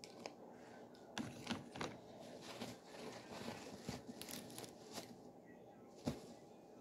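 Plastic piping bag crinkling and rustling as it is squeezed and handled, with one sharper crackle about six seconds in.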